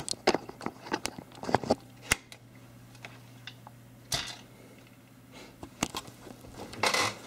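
Handling noise from a Panasonic HDC-TM90 camcorder being taken off its tripod and held in the hand: a quick run of clicks and knocks in the first couple of seconds, then a couple of brief rubbing rustles, over a faint steady hum.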